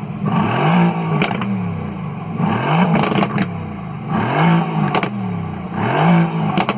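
Mercedes-AMG GT R's twin-turbo 4.0-litre V8 blipped four times, the revs rising and falling back to idle each time. Sharp exhaust pops and crackles come on the overrun as each blip falls away.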